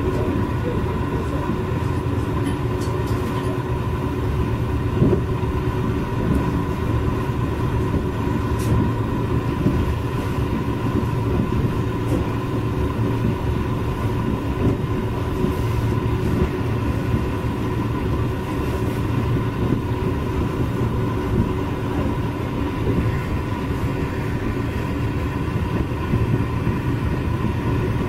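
Caledonian Sleeper train running, heard from inside a carriage: a steady rumble with a faint steady whine.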